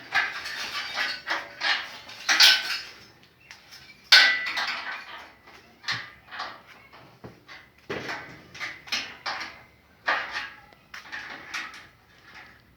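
Irregular metallic clanks and clinks of steel parts and tools being handled and knocked together, some with a short ring.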